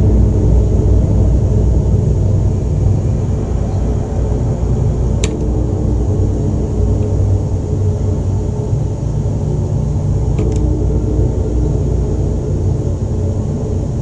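Deep, steady rumbling drone with a struck bell ringing out over it twice, about five seconds in and again about ten seconds in, each strike leaving a long humming tone.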